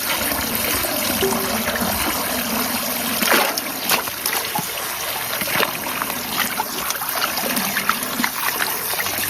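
Running water trickling and splashing steadily, with scattered light knocks and clicks of things being handled in it.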